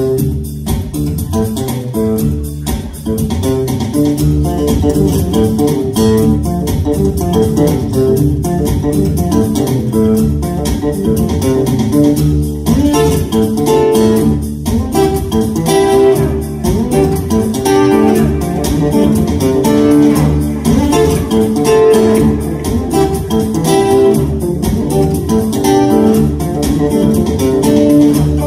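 Solo acoustic-electric guitar played live and layered through a loop pedal: rhythmic, percussive picking over a low bass line, instrumental with no singing.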